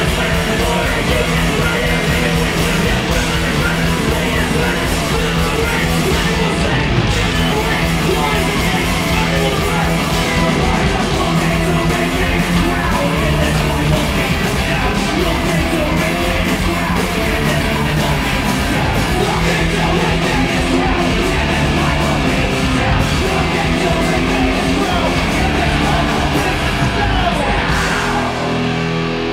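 A live band playing loud, heavy punk-metal rock with electric guitar and drums, with yelled vocals over it.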